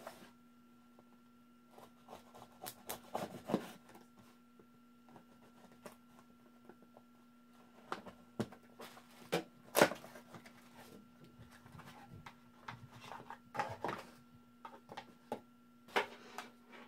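Unboxing noises: scattered clicks, taps and rustles of a small cardboard box, packaging and plastic tool parts being opened and handled, with the sharpest knock about ten seconds in. A faint steady hum runs underneath.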